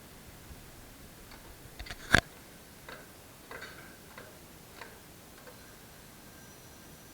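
A few scattered light clicks and taps over a quiet background, with one sharp, much louder knock about two seconds in.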